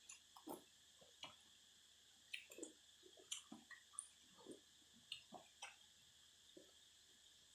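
Quiet close-up eating sounds: irregular wet smacks and clicks of someone chewing beef noodle soup and fresh vegetables, a few a second. Under them runs a steady high drone of cicadas singing.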